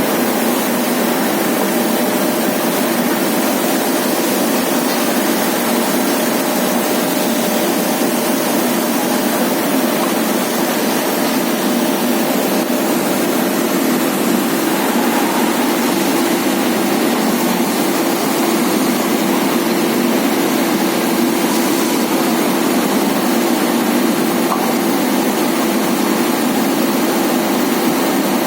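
Industrial parts washing machine running: a steady, unchanging mechanical drone with hiss.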